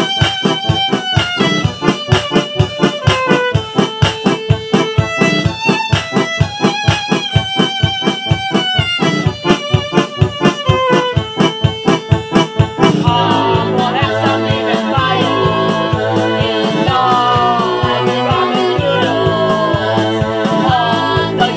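Music: a song recording. It plays a fast, even run of sharp notes, then about two-thirds of the way through changes to a fuller, held section with a melody line moving over it.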